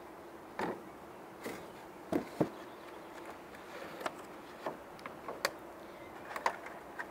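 Honeybees humming steadily over an opened beehive, with a dozen or so sharp clicks and knocks from hands handling the hive box, the loudest a pair about two seconds in.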